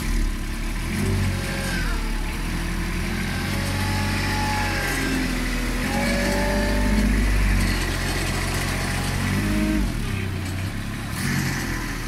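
Knikmops mini articulated loader's engine running, its pitch rising and falling as the machine is driven and worked, with a fainter higher whine gliding up and down over it in the middle.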